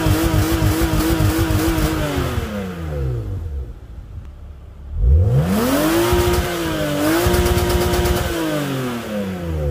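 BMW E36 engine revved up twice. Each time it climbs quickly, holds at the top for about two seconds, then falls back to idle. The ECU has been retuned to raise the rev limiter to about 7100 rpm.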